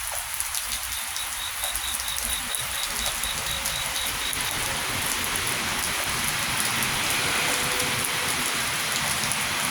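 Steady rain falling, with scattered drops ticking on a surface and growing slightly louder in the second half. A faint high pulsing, about four pulses a second, runs through the first half.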